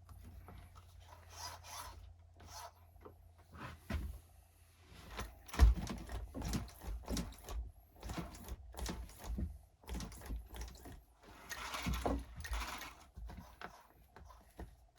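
Irregular rubbing, scraping and knocking of an RC monster truck being handled and turned over by hand, with a sharp knock about five and a half seconds in.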